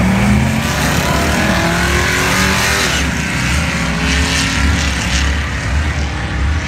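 A Chevrolet Monte Carlo and a Camaro launching side by side down the drag strip at full throttle. Their engines rise in pitch as they accelerate away.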